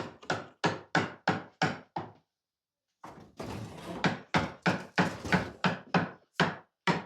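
A hammer striking wood in a steady rhythm, about three sharp blows a second, knocking out the waste from notches cut in wooden ladder rungs. The blows break off for about a second a little after two seconds in, then carry on.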